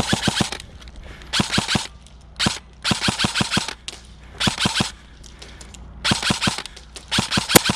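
Airsoft guns firing in short rapid bursts, about seven bursts of several quick shots each with brief pauses between them.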